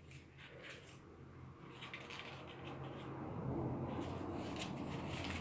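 Paper cutouts rustling and crinkling in the hands as one is pressed onto a wall, in short clusters of crackles. A low steady hum underneath grows louder in the second half.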